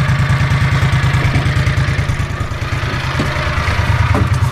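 Engine of an old John Deere Gator utility vehicle running steadily as it drives along, a fast, even low throb.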